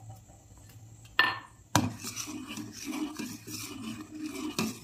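A metal ladle stirring thick reduced milk in a metal cooking pot, clinking against the pot once about a second in, then scraping steadily around the sides and bottom.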